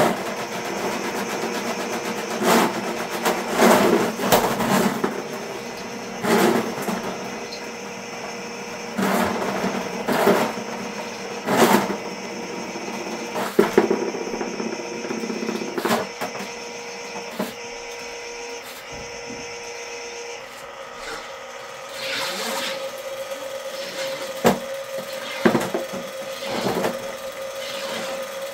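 Ridgid K-50 sectional drain machine running, its spinning cable fed by hand down a floor drain. The cable knocks and clanks irregularly in the pipe as it clears tree roots from the clay sewer line. About two-thirds of the way through, the steady motor tone changes.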